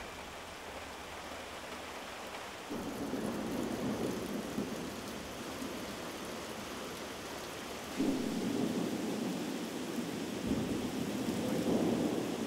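Heavy rain falling in a thunderstorm, with rolling thunder: one long rumble sets in about three seconds in, and a louder one about eight seconds in.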